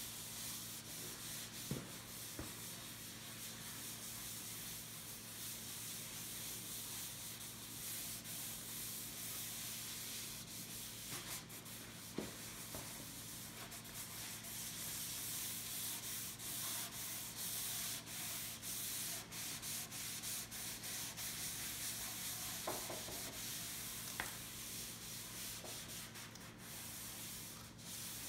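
Cloth wiping Danish oil into cherry wood: a continuous rubbing swish of the rag on the oiled surface, with a few light ticks.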